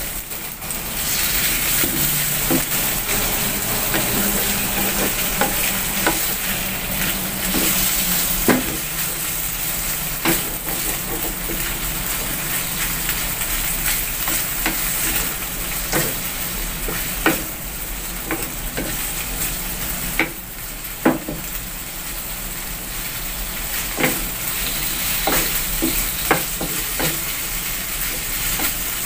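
Sliced beef sizzling as it stir-fries in hot oil in a wok, with a steady hiss throughout. A wooden spatula stirs and scrapes the meat, knocking sharply against the pan now and then.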